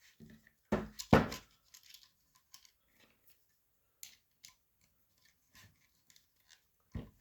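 Clicks and light knocks of an Allen key and small metal parts being handled against a paintball marker's grip. The loudest knocks come about a second in, with scattered small ticks after and another knock near the end.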